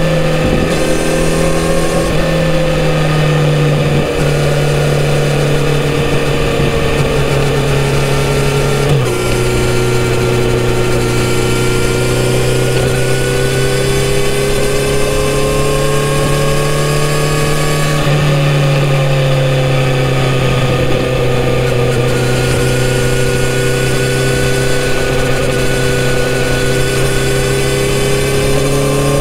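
Kawasaki Z900RS inline-four engine on its stock exhaust, running steadily at highway cruising speed, with wind rushing over the bike. The engine note drops suddenly about nine seconds in and climbs again around eighteen seconds.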